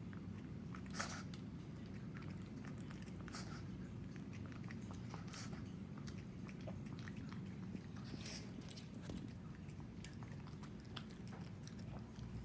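A Shih Tzu eating sardines and rice off a plate: faint, irregular chewing and lip-smacking with short clicks, the loudest about a second in.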